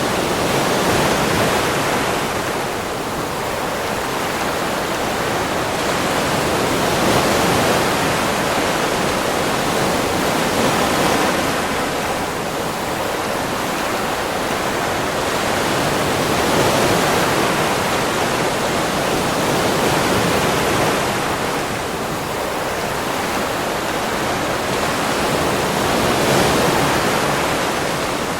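Ocean surf breaking on a beach: a continuous rush of water that swells and eases about every five seconds as the waves come in.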